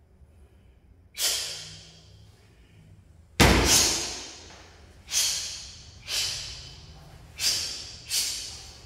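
A martial artist's sharp, hissing exhalations, one with each strike of a form, about seven in all, each cut off and fading quickly. The loudest, about three and a half seconds in, comes with a heavy thump: a foot stomping on the wooden floor.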